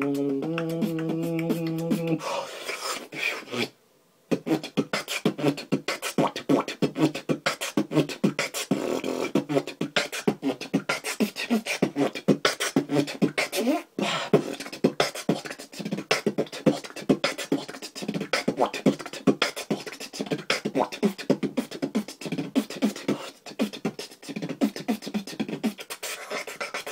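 Solo human beatboxing. It opens with a held, hummed bass note that steps up in pitch once, stops briefly about four seconds in, then runs into a fast, dense stream of vocal percussion sounds, with a short break about fourteen seconds in.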